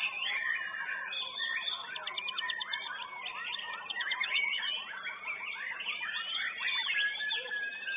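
White-rumped shama (murai batu) in full competition song: a fast, varied run of whistles and chattering phrases, with a rapid trill about two seconds in and a long level whistle near the end.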